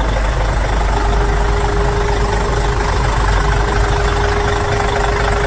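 Heavy truck engine idling, a loud, steady low rumble; a thin steady hum joins it about a second in.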